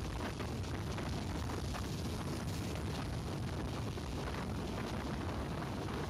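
Tram running along the track: a steady low rumble with small clicks and rattles through it.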